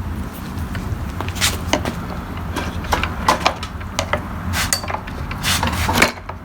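Scattered clicks and knocks from handling and prying apart the cover of a Ryobi string trimmer to free its drive cable, over a steady low hum.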